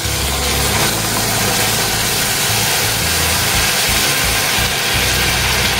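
Milk poured into semolina roasted in ghee, hissing and bubbling steadily in the hot pan as a wooden spatula stirs it.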